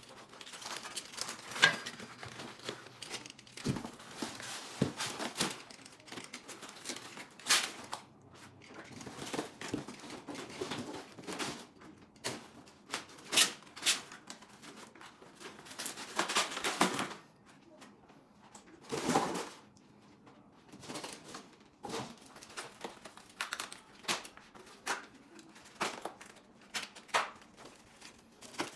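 Foam wrap, plastic and cardboard packing crinkling and tearing as it is pulled off a new electric bike, with short snips of a cutter through the ties holding it, in irregular bursts.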